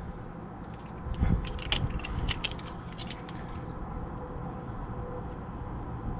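A quick run of clicks and knocks, plastic against plastic, as a hand-tightened PVC hose end is unscrewed and handled, over a steady low rumble.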